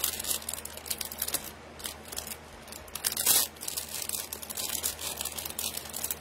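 Plastic jewelry packaging crinkling and rustling as a pair of earrings on their card is handled and taken out, with a louder crackle about three seconds in.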